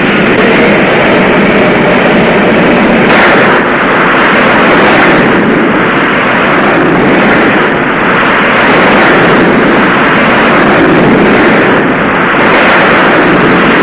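Jet aircraft engines running on an aircraft carrier's flight deck during launch operations: a loud, steady rushing noise that swells and eases a few times.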